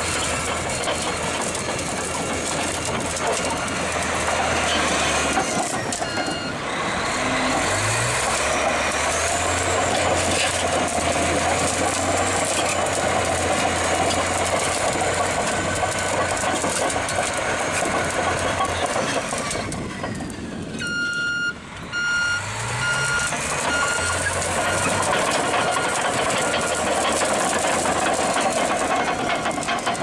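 Large crawler bulldozer's diesel engine running under load with clattering tracks, revving up twice. In the last third its reversing alarm beeps steadily, a sign the machine is backing up.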